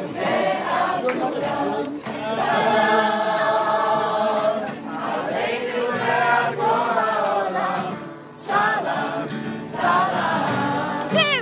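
A large group of young people singing a song together, many voices at once, with a brief drop about eight seconds in.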